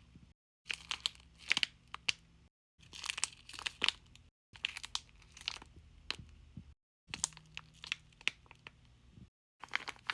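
Plastic packaging bags crinkling as small squishy toys are handled, in short runs of sharp crackling broken by sudden silent gaps every couple of seconds.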